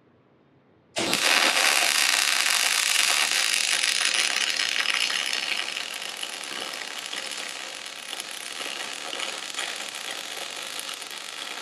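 Electric arc welder laying a continuous bead, welding a steering-axle inner C onto a 14-bolt axle tube. Steady crackle and hiss that starts abruptly about a second in, is loudest for the first few seconds and eases a little after that.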